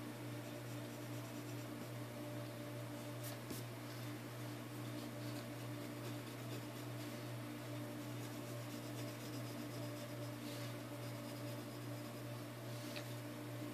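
Mechanical pencil scratching short strokes on paper, a few scattered strokes over a steady low hum.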